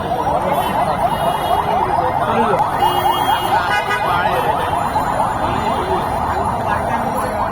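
Emergency vehicle siren yelping in fast rising sweeps, several a second, over steady street traffic noise.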